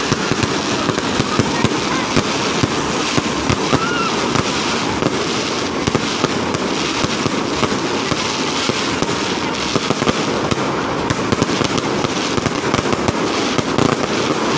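Fireworks going off close overhead in a dense, continuous crackle of many rapid pops.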